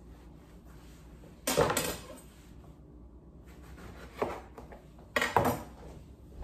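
A few short knocks and clinks of a kitchen knife and glassware on a countertop while a lemon is cut: one about a second and a half in, a lighter one about four seconds in, and a quick double knock about five seconds in.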